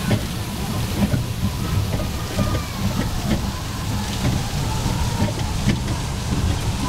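Small ride-on train running along its track: a steady low rumble and rattle with irregular knocks.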